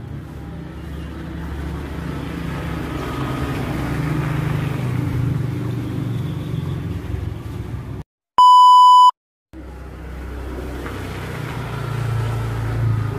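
A steady low rumble of background noise is cut off about eight seconds in by a gap of dead silence. Inside the gap a loud, steady electronic bleep tone, edited into the sound track, sounds for under a second, and then the rumble comes back.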